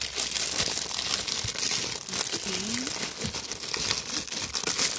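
Clear plastic bags crinkling and rustling continuously as they are handled and pushed into a fabric storage bag.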